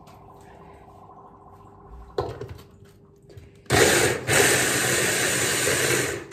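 A knock as a Braun stick blender is set onto its chopper bowl, then about a second and a half later the motor starts and runs loud and steady, its blade chopping vegetables for a pide filling.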